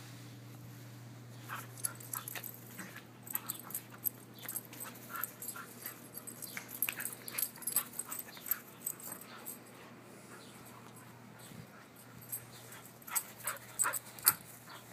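A dog playing with a plush toy: a quick, irregular run of short, sharp breathing and mouthing sounds, thickest over the first nine seconds and again about thirteen seconds in.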